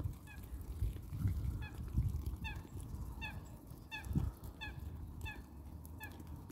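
Mute swans pecking sweet corn off bare earth, with soft low thuds, while a bird gives a steady run of short, faint honking calls well under a second apart.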